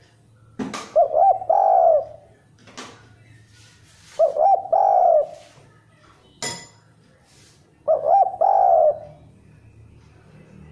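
Spotted dove cooing: three phrases about three and a half seconds apart, each a few quick short coos running into one longer coo. A sharp click about six and a half seconds in.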